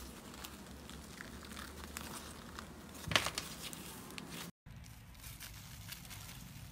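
Soft slime being pressed and squeezed by hand, giving a run of small clicks, with one louder pop about three seconds in. After a cut, a few fainter ticks.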